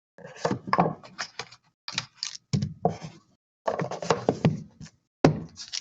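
Handling noise at a table: trading cards and packaging are knocked, shuffled and rustled in short, irregular bursts with brief silences between them.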